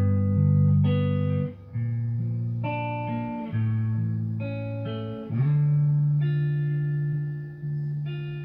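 Looped electric guitar playing through an amplifier: slow, sustained notes and chords, each ringing for a second or more before the next comes in.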